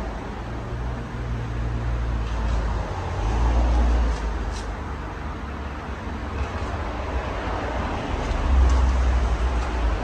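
Casablanca Delta II ceiling fan, with a Samsung K55 motor on new bearings, running with five blades: a steady rush of moving air over a low rumble that swells twice, about three and a half and eight and a half seconds in.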